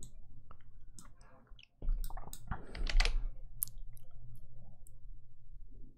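Computer mouse and keyboard clicks, a scattered, irregular handful of them.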